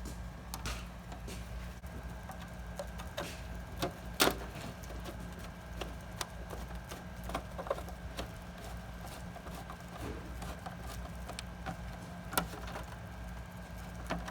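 Scattered clicks and knocks of window air conditioner parts being handled and fitted back together, the sharpest knock about four seconds in, over a steady low hum.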